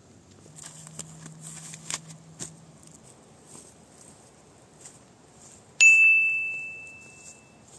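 Light rustling and crackling of dry pine needles on the forest floor as she moves. About six seconds in comes a single bright bell-like ding sound effect that rings out and fades over about a second and a half.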